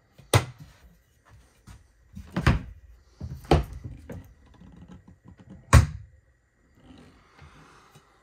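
Overhead cabinet doors on concealed hinges being swung open and shut, giving several sharp knocks a second or two apart, four of them loud.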